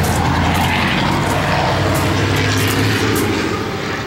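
An engine running with a steady low drone, fading away near the end.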